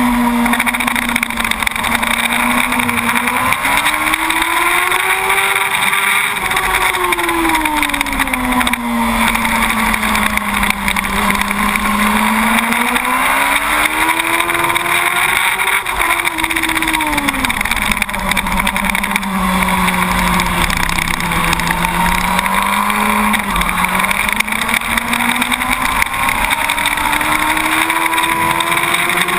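2006 Yamaha YZF-R1 SP's inline-four engine at track speed, heard from the bike's onboard camera under steady wind rush. Its pitch climbs and falls in long sweeps as the rider works the throttle through the corners, dropping lowest about two thirds of the way in and climbing again near the end.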